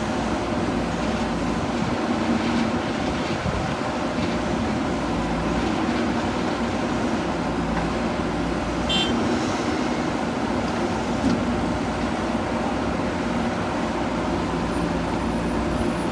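Diesel engine of a JCB 3DX backhoe loader running steadily while it works, with a brief high squeal about nine seconds in.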